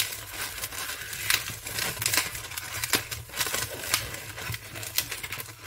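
260 latex modelling balloons being twisted and pressed against each other into a bear-ear twist: the rubber rubs and creaks in short, irregular clicks.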